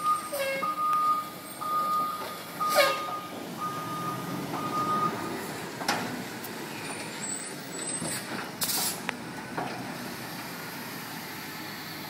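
Diesel front-loader garbage truck carrying a yellow carry can on its forks: its reverse alarm beeps about once a second and stops about five seconds in, over the running engine. A sharp air-brake hiss comes about three seconds in, and another short hiss of air near nine seconds in.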